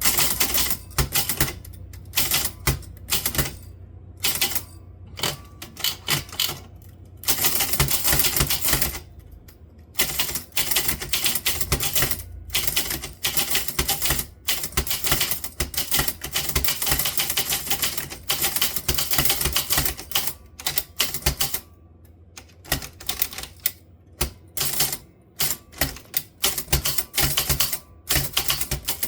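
Typewriter being typed on in rapid runs of keystrokes, with brief pauses between runs.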